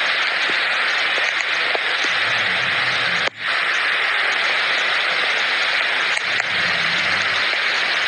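Floodwater rushing and cascading down stone steps: a loud, steady rush of water, with a momentary break about three seconds in.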